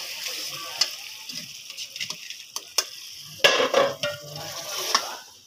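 Hot onion, garlic and green-chilli tadka sizzling as it is tipped into a pot of dal, with a metal ladle scraping and knocking against the pan and pot. The sizzle dies away, with a cluster of louder clatters about three and a half seconds in.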